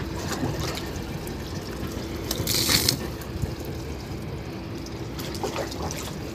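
Water being sprayed and splashed onto a car's windscreen and body, a steady wash of water with a louder burst of spray about two and a half seconds in, over a faint steady hum.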